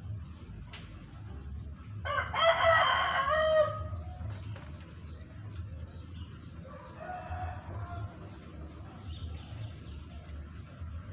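A rooster crowing once loudly, its call ending on a falling note, then a fainter second crow a few seconds later, over a steady background of rain.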